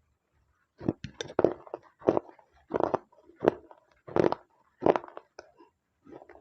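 Close-up crunching as slate pencil and red clay paste are chewed, one sharp crunch roughly every 0.7 s, starting about a second in.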